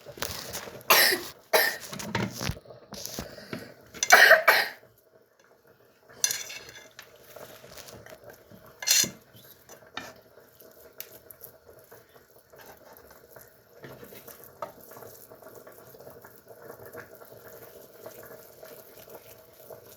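Kitchen clatter of dishes and cutlery as food is handled, with several loud coughs bunched in the first five seconds and a few more sharp sounds near the middle; after that only light, scattered clinks.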